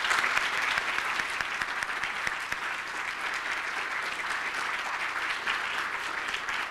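Audience applauding, many hands clapping at once; it starts abruptly and eases off slightly toward the end.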